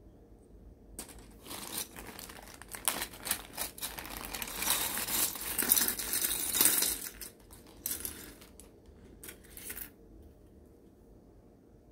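Clear plastic bag crinkling as grey plastic model-kit sprues are tipped out of it, with the hard plastic parts clattering onto a cutting mat. It starts about a second in, is loudest in the middle and stops about ten seconds in.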